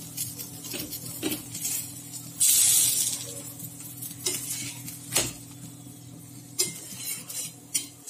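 Steel perforated spatula tapping and scraping on an iron tawa as a paratha is pressed and turned while it fries in a little oil, with scattered sharp knocks. A brief loud sizzling hiss comes about two and a half seconds in, over a steady low hum.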